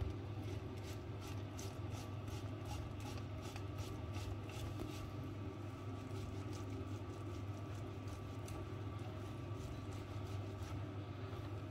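Boiled potatoes rubbed over a stainless-steel box grater: a soft, repeated scraping of about two to three strokes a second, clearest in the first half, over a steady low hum.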